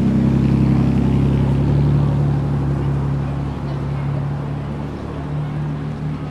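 A motor vehicle's engine running with a steady low drone, loudest in the first couple of seconds and slowly fading.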